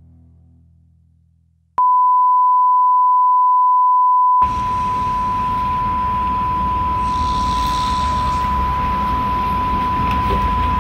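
The last notes of a rock song fade out, then a steady 1 kHz test tone starts suddenly about two seconds in and holds at one pitch. A couple of seconds later a loud rushing hiss of noise joins under the tone.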